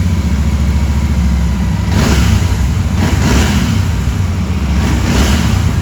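Royal Enfield Continental GT 650's parallel-twin engine running through its stock exhausts, revved up briefly three times: about two seconds in, a little after three seconds, and just after five seconds.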